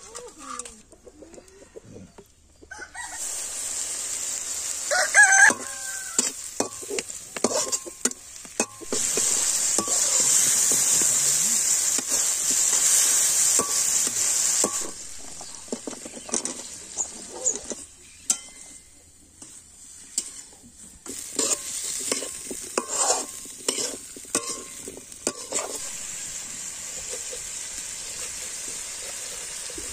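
Spiced masala sizzling in a kadai while a metal spatula stirs and scrapes against the pan, in loud stretches with quieter gaps. A rooster crows once about five seconds in.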